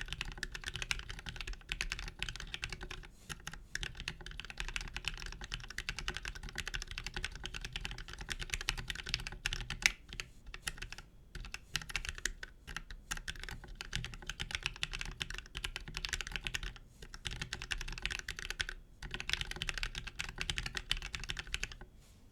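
Fast, continuous typing on a plateless 60% ortholinear mechanical keyboard with Gateron Yellow linear switches, lubed with Krytox 205g0 and filmed, under PBT keycaps. A quick run of key strokes broken by a few short pauses, with one much louder stroke about ten seconds in.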